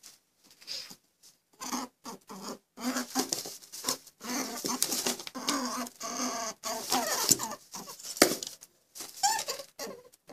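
Lop-eared rabbit grooming itself, licking its paws and washing its face: a run of short, irregular licking and rustling sounds with brief gaps between them.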